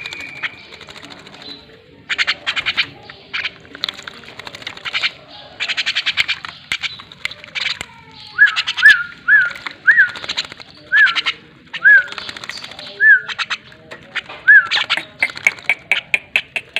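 Javan myna bathing in a shallow water dish, fluttering its wings in repeated short bursts of splashing. From about halfway in, a bird gives a run of about eight short whistled notes, each rising and falling.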